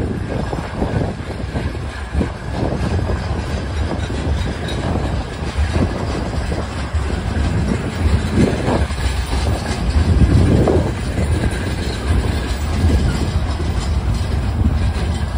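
Hopper cars of a freight train rolling past close by: a steady rumble of steel wheels on rail with irregular knocks and clanks from the wheels and couplings.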